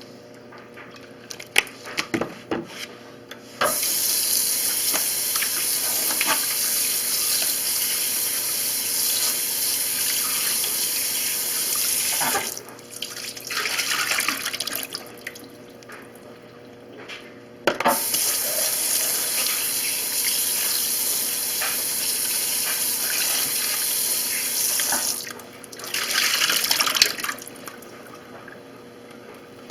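Kitchen tap running into a sink, turned on twice for about eight seconds each, with knocks and clatter of things being handled between the runs.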